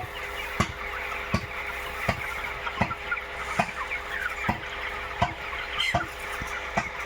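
A flock of broiler chickens in a shed, making a dense, continuous chatter of many small calls. A sharp click comes regularly about every three-quarters of a second, over a steady hum.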